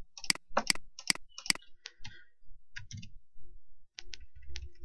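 Computer keyboard keys clicking as a word is typed: a quick run of five sharp clicks in the first second and a half, then sparser, fainter clicks.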